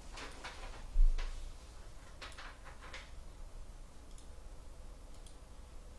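Light clicks and taps of a trading card being handled, with one sharp knock about a second in and a few quick clicks a second or so later.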